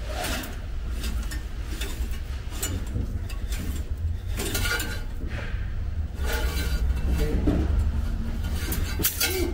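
Irregular scrapes and clicks as an old clutch cable is worked out of its guide tube under a Ferrari 308 GTS, over a steady low rumble.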